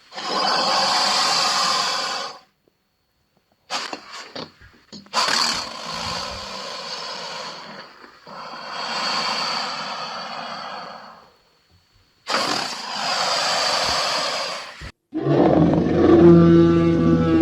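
Drogon dragon sound effects: four long roars of two to three seconds each, separated by short gaps, with a few brief clicks after the first. Near the end a lower, steadier pitched bellow starts.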